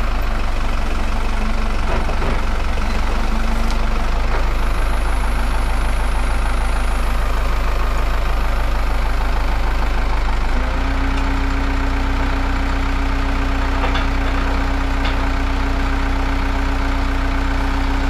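Turbocharged telehandler engine running steadily, its note stepping up slightly about ten seconds in.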